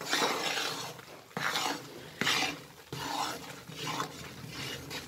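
A long metal ladle stirring gram flour roasting in ghee in a wide kadhai, in repeated scraping strokes against the pan about one or two a second. The besan has puffed up and gone frothy, the sign that it is about half roasted.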